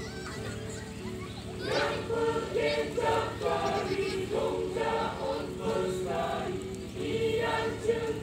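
Mixed choir of men and women singing in held, chordal phrases.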